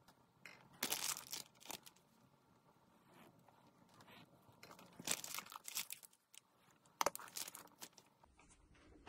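Small offset metal spatula spreading and smoothing custard cream in a tart shell, giving three bursts of crinkly scraping noise: about a second in, around five seconds and around seven seconds.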